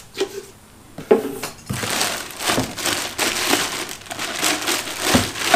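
Clear plastic packaging bag crinkling and rustling as a leaf blower tube is pulled out and unwrapped, continuous from about two seconds in. Before that come a few light knocks of parts being handled.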